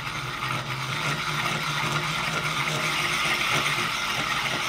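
DeWalt 20V cordless drill running at low speed with a diamond-coated hole saw pressed at an angle against aquarium glass, grinding to start the groove: a steady motor hum under a gritty grinding.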